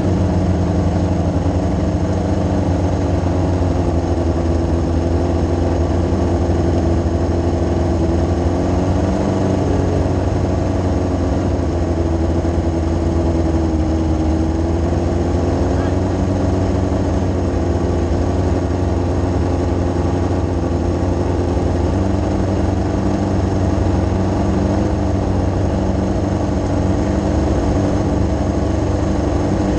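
A micro sprint's Yamaha R6 inline-four motorcycle engine idling steadily, its pitch wavering slightly about a third of the way in.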